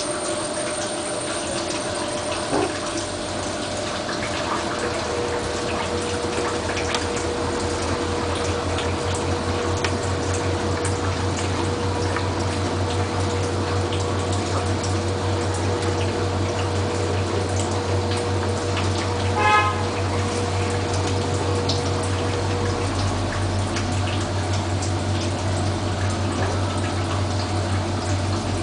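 Bosch washing machine running with a full load: water sloshing and splashing in the drum, with a steady low hum that builds in a few seconds in. A brief louder sound about two-thirds of the way through.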